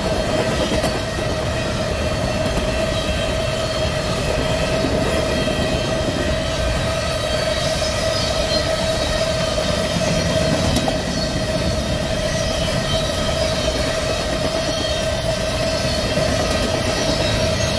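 Empty covered hopper cars of a long potash train rolling past on jointless track: a steady rumble and rush of wheels on rail, with a steady high-pitched whine held throughout.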